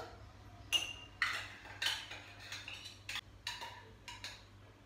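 Kitchen utensils clinking and scraping against dishes: a series of short, light sounds about every half second.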